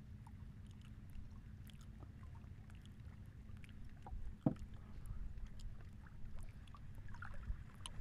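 Water lapping around a small wooden boat over a steady low rumble, with scattered light ticks and one sharper knock about four and a half seconds in.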